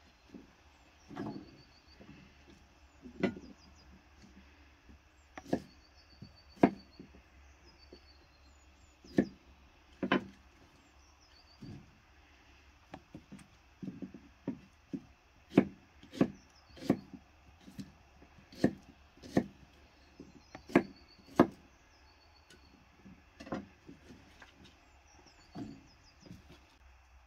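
Kitchen knife chopping asparagus on a wooden chopping board: irregular sharp knocks, single and in quick clusters, with short pauses between.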